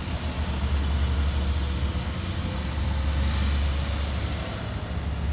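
Truck engines running with a steady, deep rumble, with traffic noise over it.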